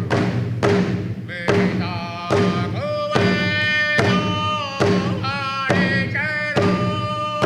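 An Indigenous drum song: a single drum struck in a steady beat, a little under one hit a second, with a high singing voice over it. The voice sings phrases that slide down in pitch at their ends.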